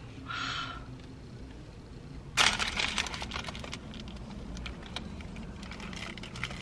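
Paper food wrapper crinkling and rustling as a burrito is handled and unwrapped, with a loud burst of crackles about two and a half seconds in and scattered crinkles after.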